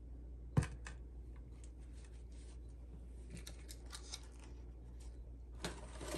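A sharp click about half a second in as a small square plastic plant pot is set down into a plastic tray, then faint rustling of a paper towel being handled, growing louder near the end.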